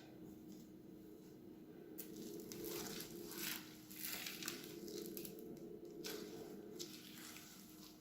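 Crunchy slime being squished and pressed, making crackling, crinkly pops. The crackling starts about two seconds in and thins out near the end.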